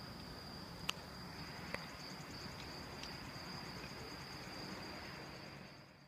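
Crickets chirping steadily at night over a constant faint high-pitched whine. Two sharp clicks about one and two seconds in, and the sound fades out at the very end.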